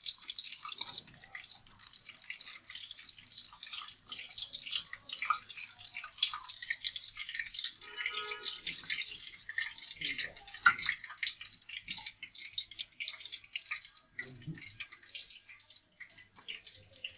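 Crab pieces frying in a wok of hot oil: a dense, steady crackling sizzle as the wire basket is lifted and shaken, with one sharp click about ten seconds in.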